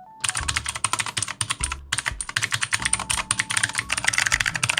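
Fast typing on a Neolution Galactus 65% mechanical keyboard with clicky blue switches: a dense run of sharp keystroke clicks, with a brief pause a little under two seconds in.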